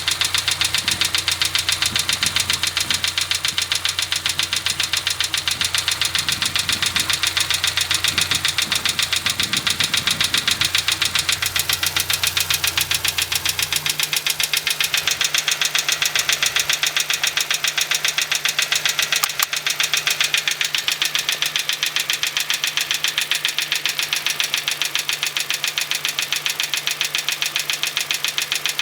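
Hyundai Getz engine running at idle with a fast, even ticking knock from under the bonnet. This is the knock the owner is recording, which has appeared about a month after an oil change at 35,000 km. About halfway through, a low hum underneath drops out while the ticking carries on.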